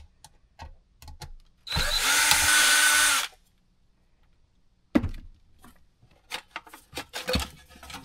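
Cordless drill/driver running at a steady speed for about a second and a half, backing a screw out of a battery load tester's sheet-metal case. Later come a few clicks and knocks as the opened metal case is handled.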